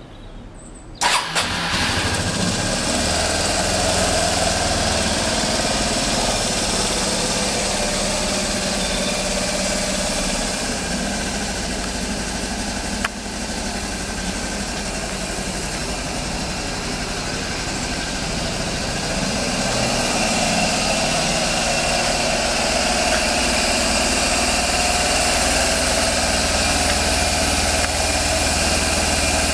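Suzuki Burgman UH125 scooter's 125cc single-cylinder four-stroke engine starting about a second in, then idling steadily. A single click is heard about halfway through.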